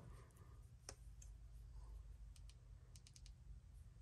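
Near silence with a faint low hum and a few faint, sharp clicks: one about a second in and a small cluster in the middle.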